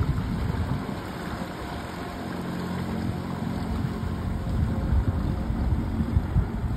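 Honda 9.9 hp four-stroke outboard motor running under way, pushing an inflatable dinghy off through the water, with gusts of wind rumbling on the microphone.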